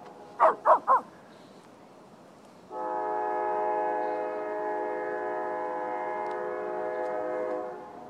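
A Lhasa apso gives three quick, sharp barks in a row. About three seconds in, a horn sounds one long, steady chord for about five seconds: a train horn.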